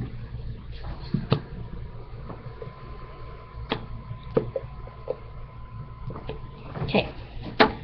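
Scattered sharp clicks and knocks of a small glass bottle and a plastic tub being handled and set down on a tabletop, about half a dozen in all, over a low steady hum, with a faint thin steady tone for a few seconds in the middle.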